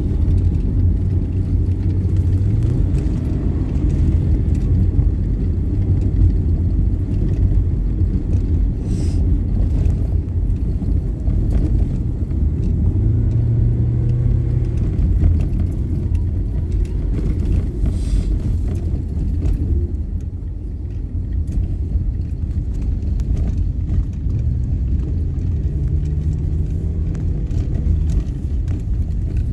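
Steady low rumble of engine and road noise heard from inside a moving vehicle, the engine note rising and falling a few times as it drives.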